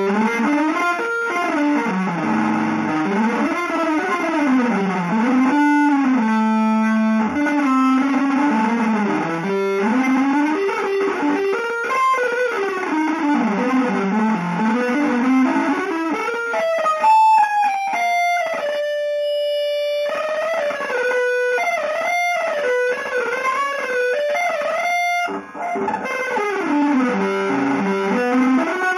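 Electric guitar playing a winding single-note melodic line, sliding and bending up and down in pitch, with one long held note about two-thirds of the way through.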